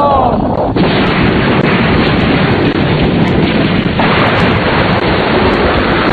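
Explosion sound effect from an anime bombing: a loud, unbroken rush of blast noise. It grows brighter about a second in and again about four seconds in.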